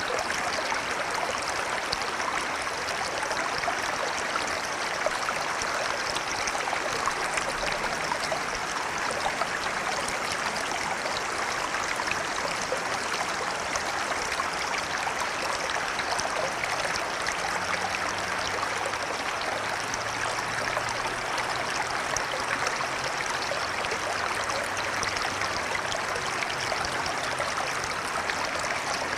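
A river flowing steadily, a continuous rush of water over rocks.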